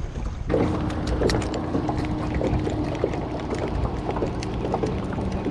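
Spinning reel being cranked to retrieve line: a steady whirr with many irregular small ticks, starting abruptly about half a second in.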